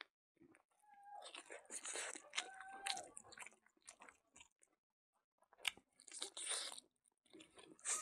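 Close-up chewing and biting of a mouthful of rice and pork, with wet mouth noises. It comes in several bursts, with a pause of about a second in the middle and a single click just before the last burst.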